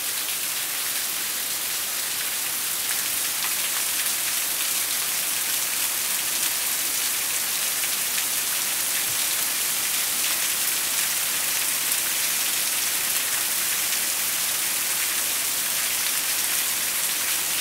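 Heavy summer downpour: steady, dense hiss of rain pouring onto grass, paving and the porch, with fine spatter of individual drops.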